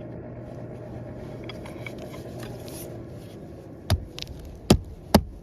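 Three sharp knocks from work on an asphalt shingle roof, close together in the last second and a half, over a steady low hum.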